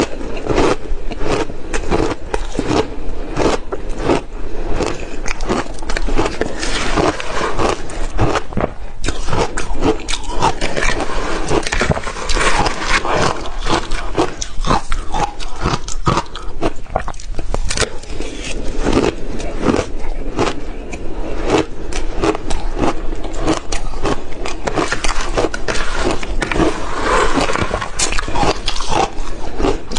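Crushed ice being bitten and chewed close to the microphone: dense, continuous crunching and crackling with no pauses.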